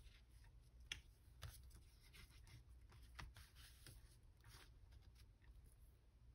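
Quiet handling of paper craft materials: faint rustles and a few small taps and clicks, the sharpest about a second in.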